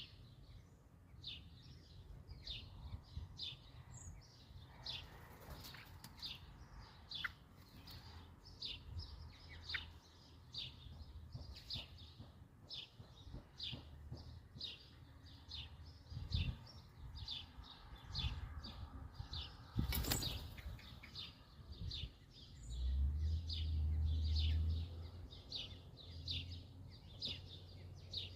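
Eurasian blackbirds calling at the nest: a long run of short, high-pitched chirps, about two a second. A sharp click about 20 seconds in, and a low rumble a little later.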